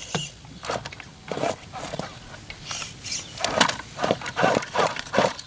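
RC rock crawler's tyres and chassis scraping and knocking against rock in irregular short bursts as the truck tips over onto its side.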